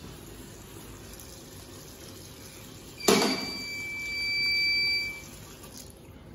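Water gushing from a sink tap for about two seconds, starting suddenly about three seconds in, with a steady high whistle over the rush of water.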